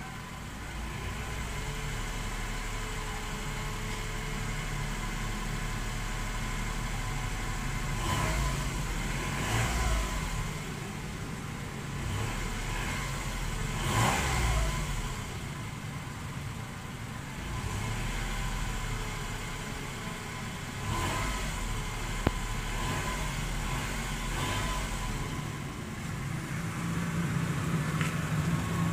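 Car engine idling in Park, revved briefly several times with rising and falling sweeps, heard from inside the cabin. Under it runs a low-pitched whistle, which the owner takes for a sign of a possible problem.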